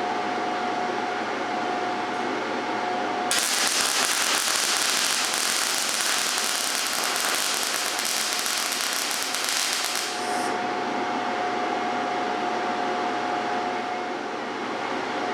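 MIG welding arc crackling and sizzling for about seven seconds as a bead is run with argon/CO2 shielding gas, starting a few seconds in and cutting off sharply. Before and after, a steady hum with a thin whine.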